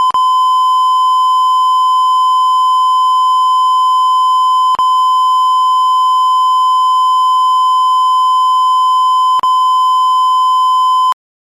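A single steady electronic alert tone near 1 kHz, the long warning tone of a mock Emergency Alert System broadcast, held unbroken apart from two brief clicks and cutting off suddenly near the end.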